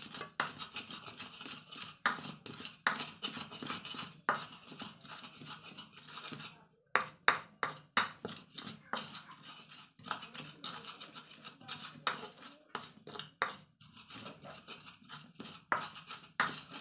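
Pestle grinding red chilies and salt in a cobek mortar: repeated scraping, rubbing strokes with sharp knocks, about two to three a second, pausing briefly twice. The chilies are being ground down to a fine paste.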